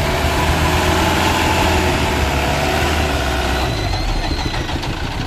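Truck engine idling with a steady low hum, fading about four seconds in.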